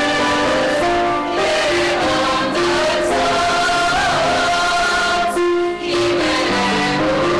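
Mixed choir of women and men singing an Armenian song in held, sustained notes, with a short break between phrases about five and a half seconds in.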